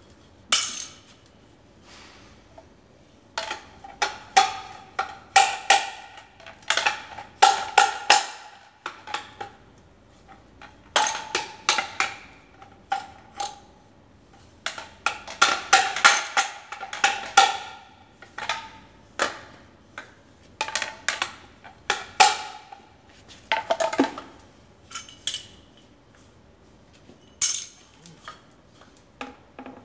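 Motorcycle fork tubes knocked together metal on metal as the inner tube is jerked up and down in the outer slider: runs of rapid ringing clanks, several a second, with short pauses between runs.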